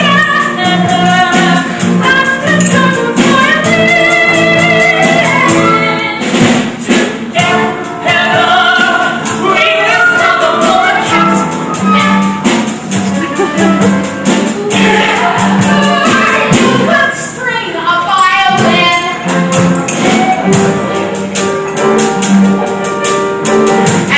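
A musical-theatre song performed live: voices singing over band accompaniment with steady percussion.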